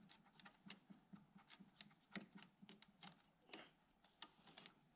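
Faint, irregular clicks and ticks, a few a second, from the kick-start gear of a Piaggio NRG MC3 scooter being handled and worked into place by hand.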